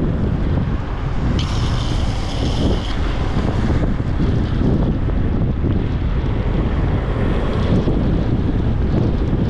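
Wind buffeting the microphone at downhill-skateboarding speed, over a steady low rumble of skateboard wheels rolling on asphalt. About a second and a half in, a high hiss rises over it for about a second and a half.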